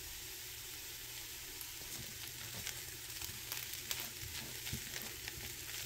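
Diced potatoes sizzling quietly in a frying pan. From about two seconds in, a wooden spatula stirs them, with irregular soft scrapes and taps against the pan.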